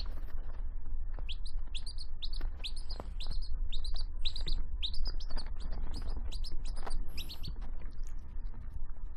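Baby chick peeping: a run of short, high cheeps, about two a second, that stops near the end, over a steady low rumble.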